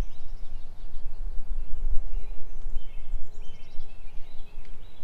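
Wind noise on the microphone, swelling and easing, with small birds chirping repeatedly in the background.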